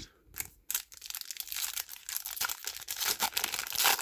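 Foil wrapper of a trading-card pack being torn open and crinkled by hand, a dense crackle that builds and is loudest near the end.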